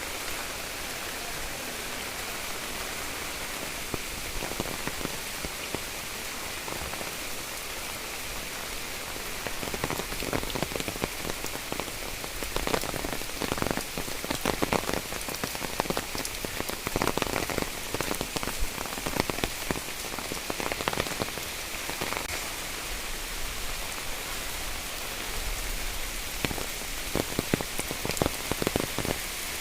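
Heavy rain falling steadily: a dense hiss with many individual drops pattering close by, the drops growing louder and more frequent about ten seconds in.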